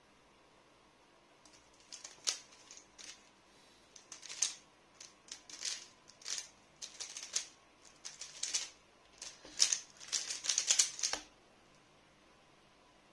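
Plastic 3x3 speedcube being turned fast in a timed solve: rapid flurries of clicking and clacking layer turns, which stop suddenly about eleven seconds in when the solve is done.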